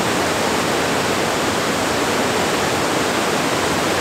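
Fast mountain river rushing steadily over boulders in white-water rapids.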